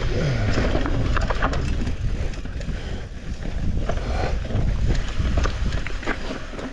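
Mountain bike descending a rough dirt trail: a steady low rumble of tyres over the ground, with the bike rattling in a run of irregular sharp clicks and knocks.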